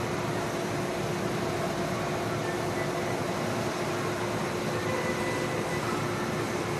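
Train-washing plant with a train rolling slowly through it: a steady mechanical whir and hiss with a constant low hum.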